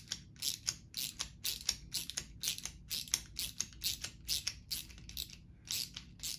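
Quarter-inch drive socket ratchet clicking, about three clicks a second, as it is swung back and forth to unscrew a muzzleloader bolt's spring-loaded firing pin.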